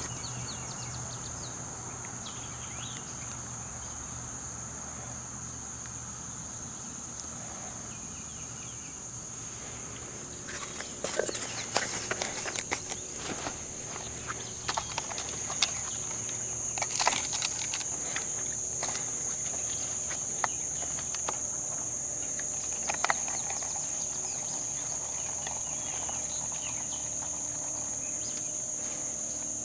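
Steady high-pitched insect drone, with scattered clicks and rustles of fishing gear being handled from about ten seconds in until just before twenty-five seconds.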